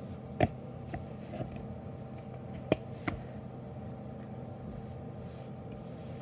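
A few sharp taps and knocks from hands working in a glass mixing bowl of powdered sugar and icing, the loudest about half a second in and another near the middle, over a steady low hum.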